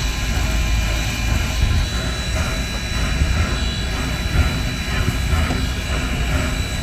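Narrow-gauge steam locomotive No. 480 standing under steam, giving a steady low rumble with a hiss over it.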